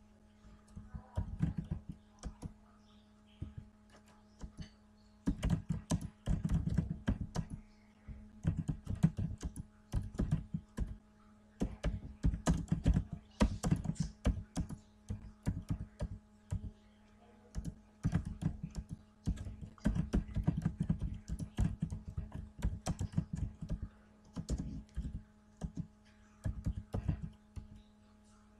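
Typing on a computer keyboard in irregular bursts of rapid key clicks with short pauses between them, over a faint steady low hum.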